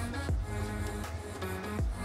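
Background music with held notes and a deep drum hit about every one and a half seconds.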